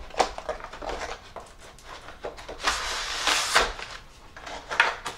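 Rustling and crinkling of clear plastic packaging as a kit box is opened and its bagged contents are pulled out, loudest for about a second midway, with a few light clicks and taps of parts being handled.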